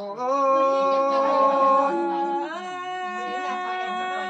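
A woman singing a Tai Dam (Black Thai) folk song in a long, drawn-out style: one held vowel that slides up at the start, then steps to a new pitch about two and a half seconds in and is held on.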